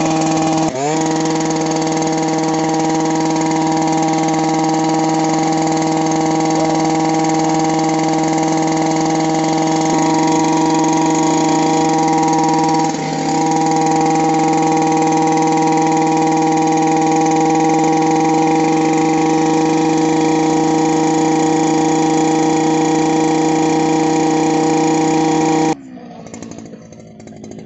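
Stihl BT 230 earth auger's two-stroke engine running at high revs as the auger bores into soil. The engine note is steady apart from a brief dip in pitch about a second in and a short dip around the middle. Near the end the engine drops off sharply in level.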